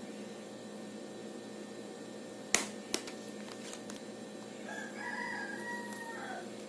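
A metal spoon clicks twice in quick succession as chopped kiwi is spooned into a loaf pan, then a long pitched animal call rings out in the background for nearly two seconds, drooping at its end.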